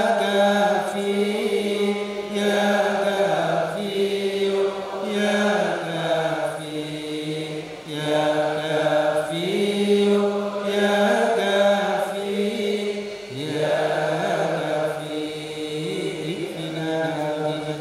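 Islamic devotional chanting by male voices: long held notes that step up and down in pitch, phrase after phrase, with short breaks between phrases.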